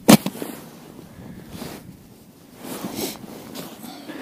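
A single sharp knock just after the start, followed by faint soft rustling.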